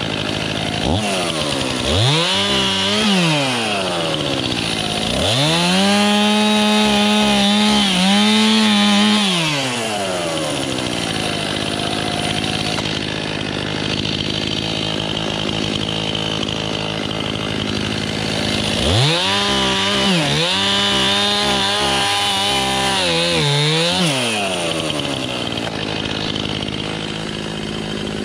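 Stihl Farm Boss two-stroke chainsaw idling, then revved up three times to cut firewood: a short burst about two seconds in, a longer cut of about five seconds soon after, and another near the twenty-second mark. During the cuts the engine pitch dips briefly as the chain loads in the wood, then falls back to idle.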